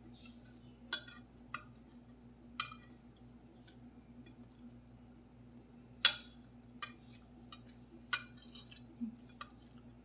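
Metal spoon and fork clinking and scraping against a ceramic plate while eating, in scattered sharp clinks, a few early on and a closer run of them in the second half. A steady low hum runs underneath.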